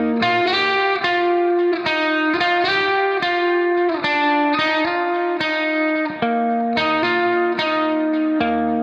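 Background music: an electric guitar playing a steady rhythmic pattern of plucked notes.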